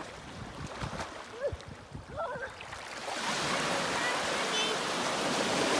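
Waves washing in: a steady rush of water that swells up about halfway through, after a quieter first half with a few faint voices or calls.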